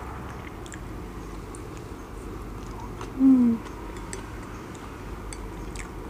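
Eating sounds: quiet chewing and faint clicks of wooden chopsticks against a ceramic plate. About three seconds in comes a short, falling "mm" hum from the eater, the loudest sound.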